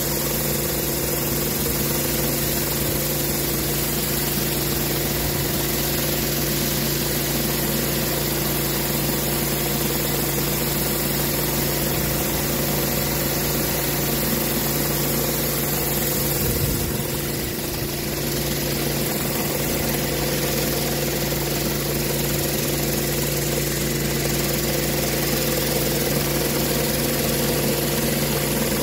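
Pressure washer running steadily, with the hiss of water jets from a rotary surface cleaner being pushed over a rubber wet pour surface. The drone and hiss dip briefly a little past halfway.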